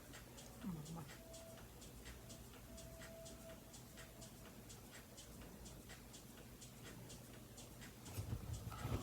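Quiet room with faint, quick, even ticking throughout. A short low sound comes about a second in, and rustling starts near the end.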